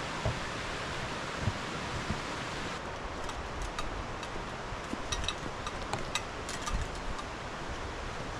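Footsteps on a hiking trail, with a few low thuds early on and light crackling of leaves and twigs from about three seconds in, over a steady rushing outdoor noise.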